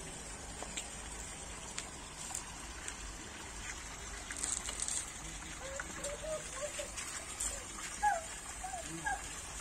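Water from the rock edge of a garden ornamental pool splashing and trickling steadily into the pool. A few short high chirps come in over it in the second half.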